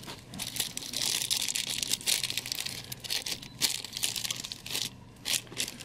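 Thin clear plastic wrap crinkling in irregular rustles as it is pulled off a small statue part by hand.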